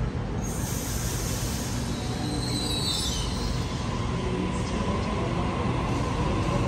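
Sydney Trains double-deck electric passenger train pulling out of the platform over a steady low rumble. A burst of hiss comes about half a second in and a brief high squeal falls in pitch around three seconds in. After that a thin motor whine rises slowly as the train gathers speed.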